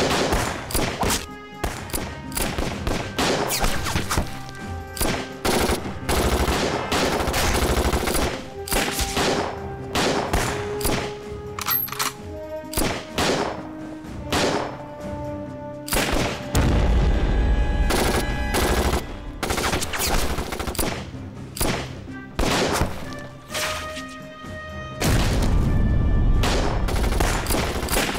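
Rapid film-soundtrack gunfire, rifle and machine-gun shots in quick succession, over a dramatic orchestral score. A deep low rumble swells up twice, around the middle and near the end.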